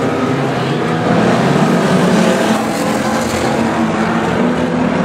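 Several banger racing cars' engines running and revving together, the engine notes rising and falling as the cars race past, loudest about two seconds in.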